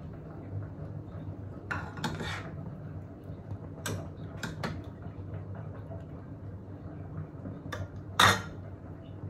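Steel ladle stirring thick curry in a metal pot, scraping and knocking against the pot several times, with one louder clank near the end, over a steady low hum.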